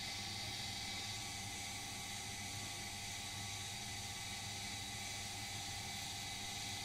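Steady low hum and hiss of background noise, unchanging throughout, with no distinct sounds.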